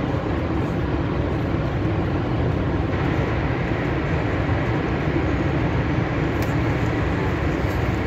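Horseshoe Falls rushing steadily, a heavy, unbroken wash of falling water with a deep rumble underneath.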